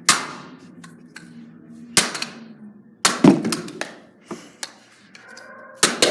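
A lacrosse stick striking a small plastic hairdryer hard, four loud blows roughly two seconds apart, each with a short clattering rattle after it as the hairdryer is knocked about unbroken.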